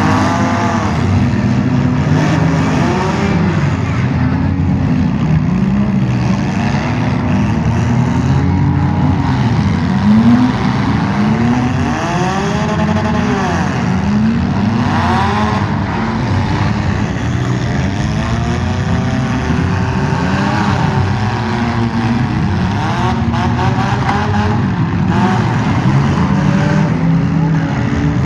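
Several demolition derby cars' engines revving at once, their pitches rising and falling and overlapping in a loud, continuous din, with a brief louder moment about ten seconds in.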